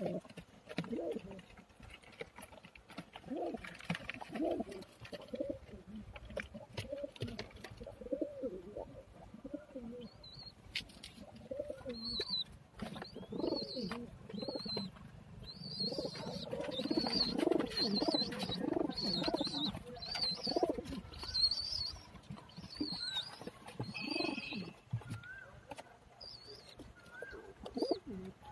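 Several domestic pigeons cooing, their low warbling coos overlapping and densest around the middle. From about ten seconds in, short high chirps repeat over the coos.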